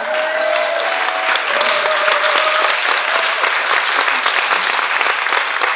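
Audience applauding steadily in a hall, with one voice calling out, held, over the clapping in the first couple of seconds.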